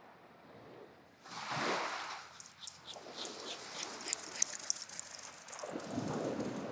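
A small dog running on wet sand, with a quick run of light clicks from about two to five seconds in. Small waves wash in about a second in and again near the end.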